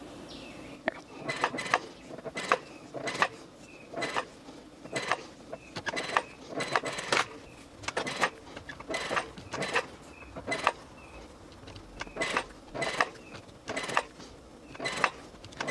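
Domestic sewing machine stitching slowly while basting fabric pleats, a run of short mechanical clicks and knocks, irregular, about one to two a second.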